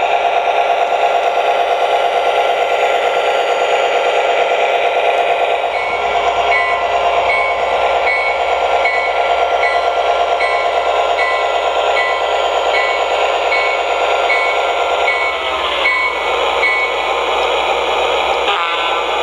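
Lionel GP7 model diesel locomotive's RailSounds sound system playing diesel engine rumble through its small onboard speaker. From about six seconds in until near the end, a bell rings in regular strokes about every two-thirds of a second.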